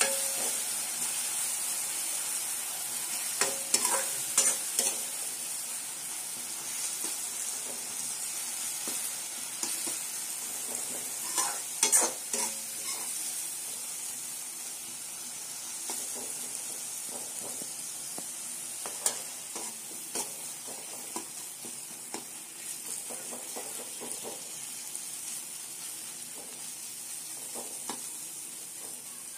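Sliced onions and ground masala sizzling in hot oil in an aluminium kadhai, the masala being fried, with a metal spoon scraping and clicking against the pan as it is stirred now and then. The sizzle slowly grows quieter.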